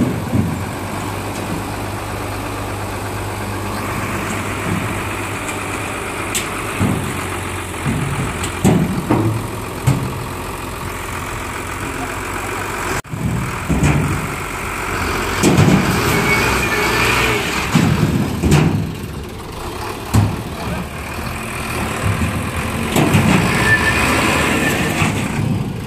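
Heavy truck diesel engine idling with a steady low hum, with people's voices breaking in now and then, more often in the second half.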